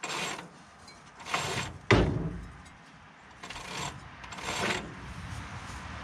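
Ratchet wrench on a socket extension worked in short rasping strokes, tightening spark plugs down into the engine. One sharp metallic knock about two seconds in is the loudest sound.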